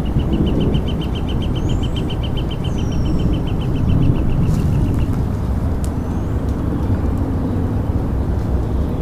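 Long, continuous low rumble of thunder from an approaching severe thunderstorm. A high, rapid trill runs through the first five seconds or so, with a few brief high chirps.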